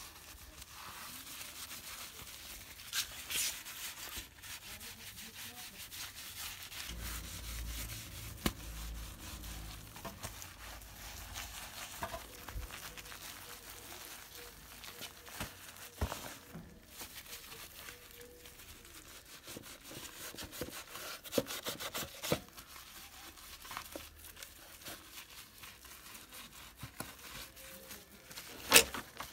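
Cloth rubbing and scrubbing over a motorcycle's chrome engine cover and frame, with scattered light knocks and one sharp knock near the end.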